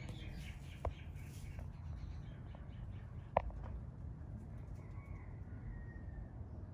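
A few short bird calls over a steady low rumble, with a sharp chirp-like sound about three and a half seconds in.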